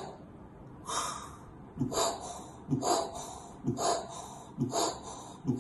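A man imitating heart sounds with his mouth: the combined murmurs of double aortic valve disease. Each cycle is a short low beat followed by a breathy hiss, repeating about once a second. The hisses stand for a harsh ejection systolic murmur, the sign of aortic stenosis, and a soft early diastolic murmur, the sign of aortic regurgitation.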